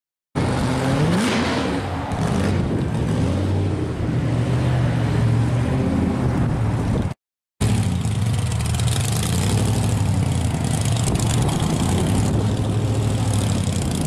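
Blown V8 of a pro-street 1963 Corvette split-window coupe with a hood-mounted supercharger, running loud as the car drives slowly by. The revs rise and fall in blips early on, then settle to a steadier pull. The sound cuts out briefly about seven seconds in.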